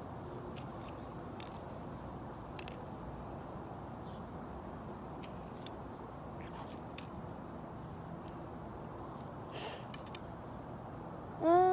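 Scattered small clicks and taps over steady background noise, as BBs are loaded by hand into an airsoft gun. Near the end a short, louder tone rises and then holds steady.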